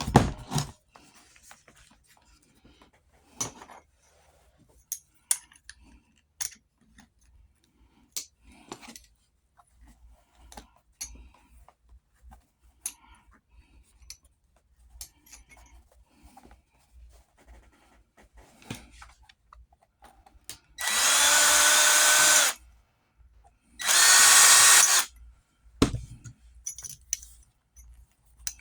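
Scattered small knocks and clicks of hand work, then a power drill runs twice in short steady bursts, each a little over a second, about three quarters of the way through.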